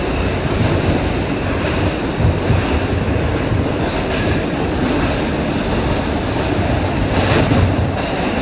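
R142 subway train heard from inside the car as it runs through a tunnel: a steady, loud rumble of steel wheels on rail, with a brief louder burst of noise about seven seconds in.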